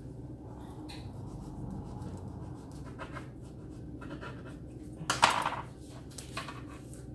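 Short rustling and scraping of thin filo pastry sheets and a utensil being handled on a kitchen countertop, several brief strokes with the loudest about five seconds in, over a low steady hum.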